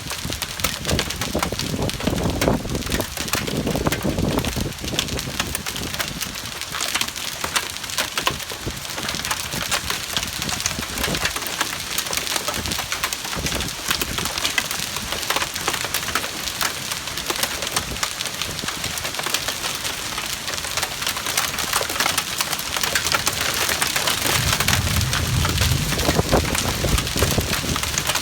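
Hailstones striking hard surfaces in a dense, steady clatter of many small impacts.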